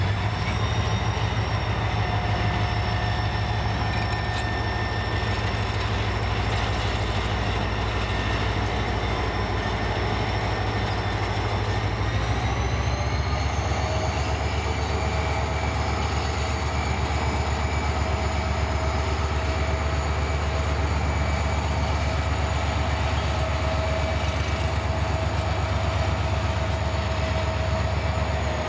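Diesel freight locomotive running close by: a steady low engine throb with whining tones above it. About halfway through, the whine rises a step in pitch and then holds steady.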